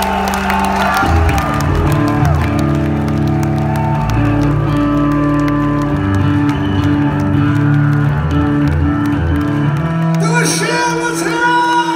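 Yamaha electric bass guitar played loud through a stage amplifier: a run of low sustained notes, ending on a single held note that rings on from about ten seconds in. The crowd shouts and whoops near the end.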